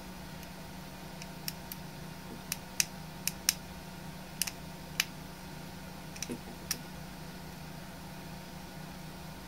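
Light, irregular clicks of a small screwdriver and plastic parts as the two screws holding an action camera's lens holder are undone, about a dozen in all, over a steady low hum.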